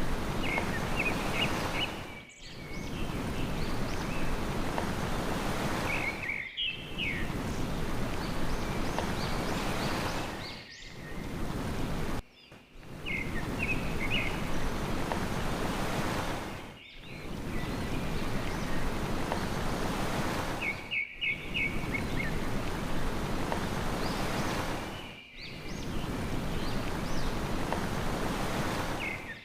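Sea waves washing steadily, with small birds chirping in quick runs of notes over them. The sound dips briefly about every four seconds, and the same short stretch repeats after each dip, as in a looped recording.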